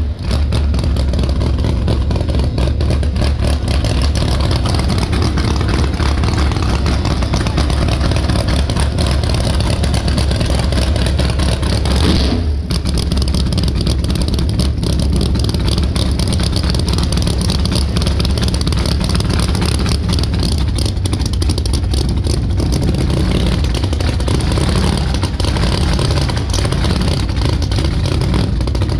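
Big-tire no-prep drag race car engines running loud and lumpy near the starting line, a steady heavy rumble with a brief dip about twelve seconds in.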